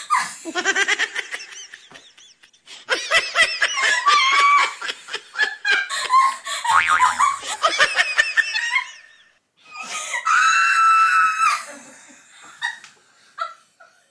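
A woman laughing hysterically in long runs of rapid breathy bursts, with a high squeal held for over a second about ten seconds in.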